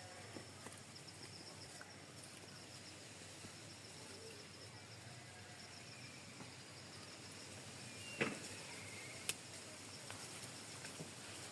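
Faint rural outdoor ambience with insects chirping in a fast, steady pulse. Near the end a sharp knock, then a click about a second later.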